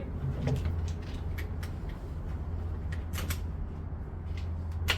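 A few light metallic clicks, scattered and the last near the end the sharpest, as a .22 rimfire gun is loaded and its action worked ready to shoot, over a steady low hum.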